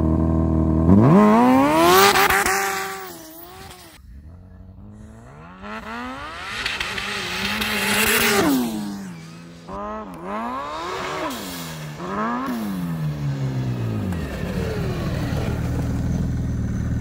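Turbocharged 2006 Yamaha Apex snowmobile's four-stroke four-cylinder engine revving hard in two long pulls, each climbing in pitch and falling back. A few quick throttle blips follow, then it settles into a steady idle over the last few seconds.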